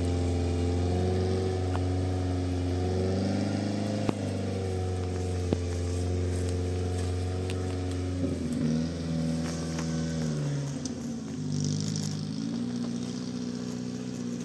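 Off-road vehicle engine running steadily, its note wavering slightly, then settling lower about eight seconds in, with a couple of sharp knocks along the way.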